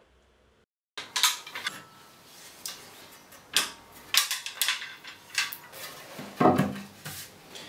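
After a second of near silence, metal sash clamps clink and clatter as they are handled around a glued-up wooden seat blank. The clicks are irregular, with a few heavier wooden knocks as the blank is lifted and set down on the bench.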